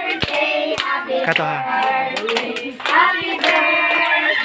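A group of people clapping their hands while several voices sing, children's among them.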